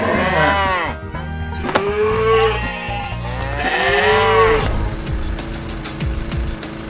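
Cows mooing: three long moos one after another, each rising then falling in pitch. From about five seconds in there is a steady rushing noise with a low hum.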